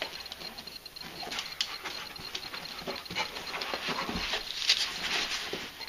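A dog scrabbling and twisting on a cushioned dog bed, a busy run of light scuffs and clicks from its paws and snapping jaws as it tries to reach a strip of tape stuck to its back.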